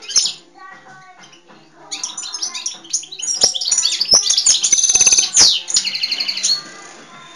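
European goldfinch singing. A short call comes just after the start, then from about two seconds in a fast twittering song with a rapid trill and a buzzy stretch, stopping about a second before the end.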